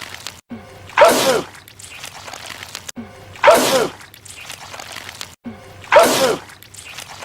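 A man's loud sneeze, the same clip repeated three times about two and a half seconds apart, each with a falling pitch.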